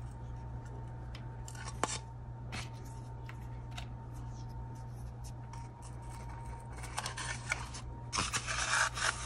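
Hands handling a thin plastic cup and threading a nylon cord wick through a hole in its bottom: scattered light clicks and crinkles over a steady low hum. About eight seconds in comes a denser burst of rustling.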